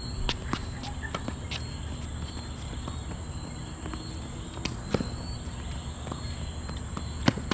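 Tennis balls being hit with racket strings and bouncing on a hard court in a rally: a few sharp knocks spaced over several seconds, the loudest near the end, with footsteps on the court. A steady high-pitched insect buzz runs underneath.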